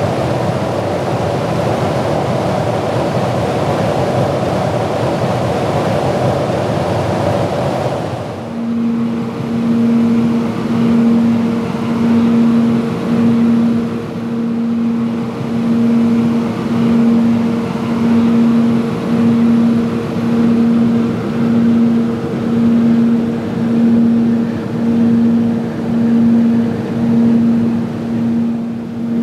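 Aircraft engine and slipstream noise heard from aboard a camera plane in flight. For the first eight seconds or so it is a dense, steady rush. Then it changes abruptly to a low engine drone that swells and fades about once a second, the beat of engines running slightly out of step.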